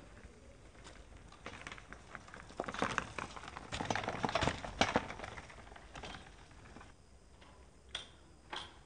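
A child's bicycle rolling over dry dirt and a small object, its tyres giving a dense run of crackles and clicks that is loudest about five seconds in. Two separate clicks follow near the end.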